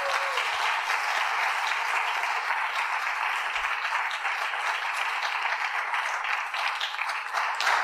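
Audience applauding: steady clapping from many hands that stops near the end.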